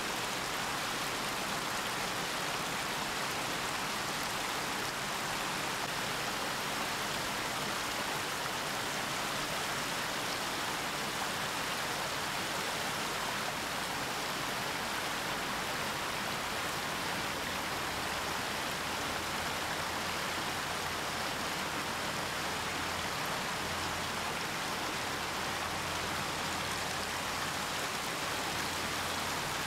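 Steady, even rushing noise of running water, with no calls or other distinct sounds in it. A faint low hum joins it about two-thirds of the way in.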